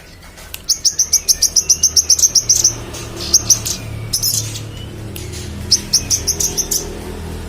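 A manggaran songbird singing in full voice: fast runs of sharp, high chirps, about ten a second. A long run starts about a second in, single notes follow, and a second run comes near the end.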